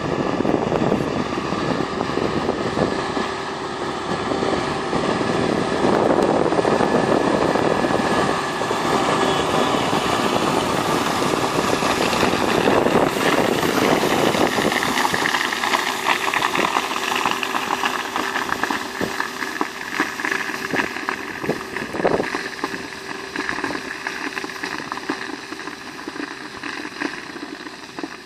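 Fendt 927 Vario tractor's six-cylinder diesel engine running under load as it drives past pulling a Zunhammer slurry tanker, loud as it comes close and fading as it moves away.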